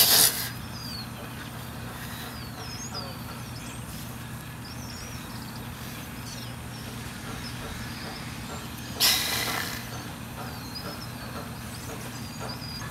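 Small birds chirping and twittering on and off over a steady outdoor background hum. Two short bursts of rushing noise, one at the start and one about nine seconds in, are the loudest sounds.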